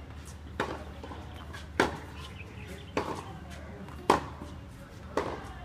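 Tennis rally: sharp pocks of a racket striking the ball, five about a second apart. The loudest is a forehand about four seconds in.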